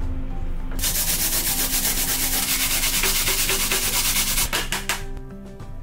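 A daikon radish with a red chili pepper pushed into it is grated on a flat metal grater over a metal tray. A rapid run of rasping strokes starts about a second in, then a few slower strokes follow before it stops near the end.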